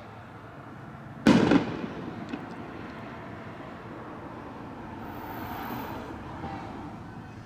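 A single loud firework bang about a second in, with a short echoing tail, followed by a few faint crackles over a steady background rumble.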